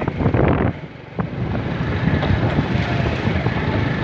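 Wind buffeting the microphone over a steady vehicle engine rumble while on the move, settling in after a brief dip about a second in.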